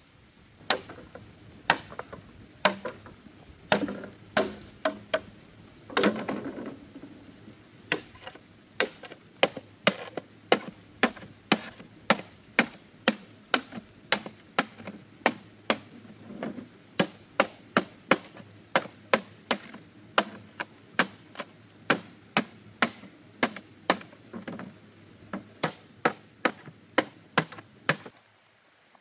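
Machete chopping green bamboo poles laid over a log: a long run of sharp strokes at about two a second, with a longer rustling noise about six seconds in.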